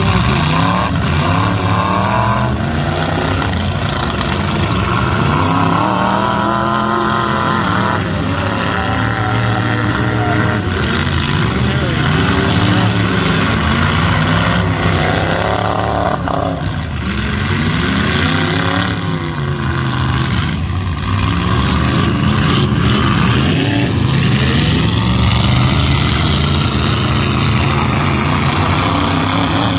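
Engines of several full-size demolition derby pickup trucks revving up and falling off again and again as they drive and ram each other, loud throughout.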